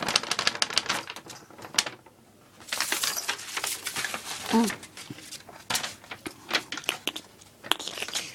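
Paper rustling and crinkling in spells of rapid crackles as a cat bats at it and tears it, with a short vocal sound about four and a half seconds in.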